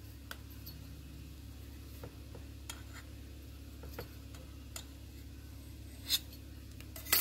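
Light clicks and taps of a thin clay blade touching down on the work surface as a sheet of polymer clay is trimmed around a small clay log, with two sharper taps near the end, over a steady low hum.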